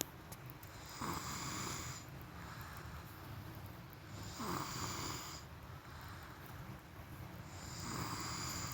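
A person snoring in sleep: three snores about three and a half seconds apart, each lasting about a second.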